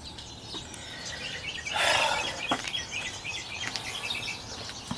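Birds chirping in the background in short repeated calls, with one brief harsh burst of noise about two seconds in.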